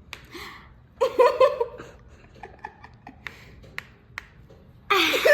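Finger knuckles cracking: several separate short, sharp pops as the joints are bent, between two loud bursts of laughter, one about a second in and one near the end.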